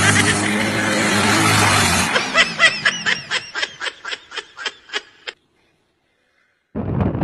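About two seconds of loud, steady noise with a low hum, then a person laughing in a quick run of short 'ha' bursts, about five a second, that fade out. After a short silence, wind buffets the microphone near the end.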